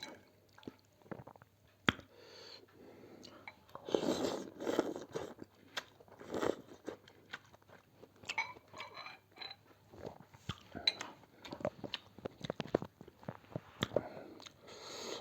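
A person eating chicken thukpa noodle soup close to the microphone: irregular chewing and mouth clicks, with louder noisy stretches about four and six and a half seconds in.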